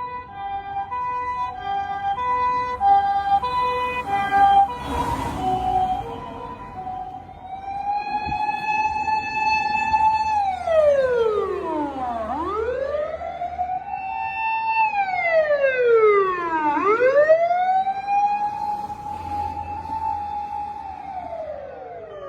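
Japanese ambulance two-tone siren alternating between two pitches, with a brief rush of noise about five seconds in. From about seven seconds a wail siren takes over, holding a high pitch, then sweeping down and back up twice.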